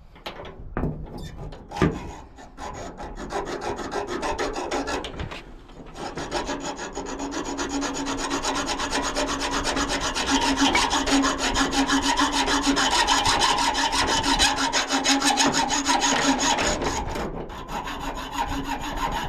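Old rusty hacksaw cutting through a steel padlock shackle, rapid back-and-forth strokes with a grating rasp and a ringing squeal from the blade. A few knocks as the saw is set on the lock, then the sawing builds to a steady pace.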